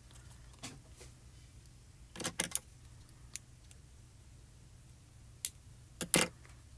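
A few light clicks and taps of small craft items being handled on a work table: a quick run of three about two seconds in, a single tap, then two more near the end.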